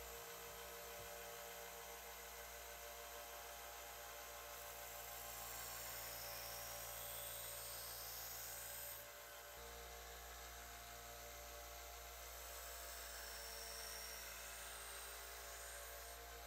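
Small benchtop belt sander running steadily with a steady hum, steel held against its narrow belt for grinding. It dips briefly about halfway through and cuts off suddenly at the end.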